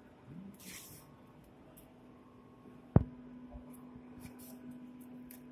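Faint handling rustles and one sharp knock about three seconds in as broken parts of a damaged front bumper are handled, over a steady low hum.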